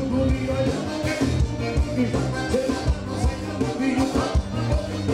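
Live forró band playing, with accordions, electric guitars, bass and drums on a steady beat, and a male singer.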